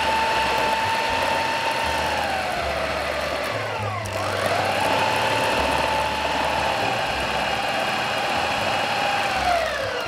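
Food processor motor running as it blends chunks of day-old potica with melted chocolate and cream, a steady whine that winds down briefly about four seconds in, starts up again, and winds down to a stop near the end.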